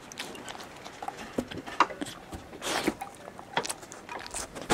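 Landseer Newfoundland puppy mouthing and licking at chicken scraps on a wooden deck: irregular small clicks, smacks and crunches, one longer rustle near the middle, with the puppy getting to its feet near the end.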